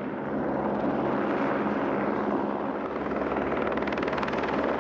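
Helicopter's rotor and turbine engine running steadily as it hovers close by with a load slung beneath it, with a fast chop of the blades coming through more clearly near the end.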